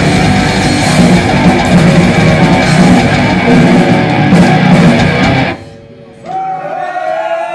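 Live heavy metal band, distorted electric guitars, bass and drums, playing loud through a PA, until the song stops abruptly about five and a half seconds in. A moment later the crowd starts cheering, with whistling and shouts.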